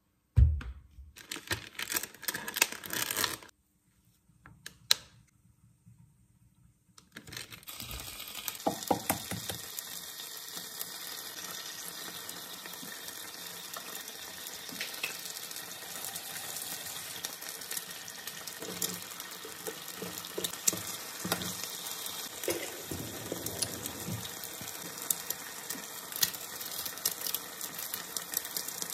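Ham and an egg frying in oil in a small rectangular tamagoyaki pan: a steady sizzle with small pops that starts about seven seconds in, after a few knocks and handling sounds.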